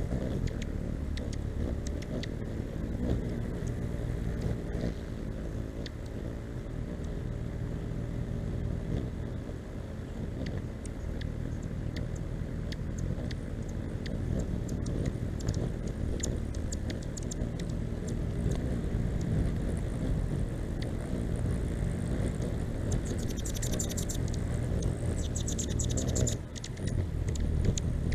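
Hummingbirds' wings humming in a low steady drone, with scattered sharp chip calls. A burst of high-pitched chittering comes about 23 seconds in.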